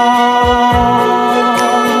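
Music from a Russian pop ballad: a sustained chord of held tones, with a few low drum beats.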